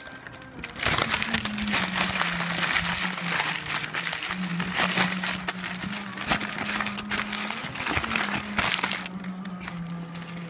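Brown packing paper crinkling and rustling loudly as it is handled and pulled away during unwrapping, a dense run of crackles that starts about a second in and eases off near the end.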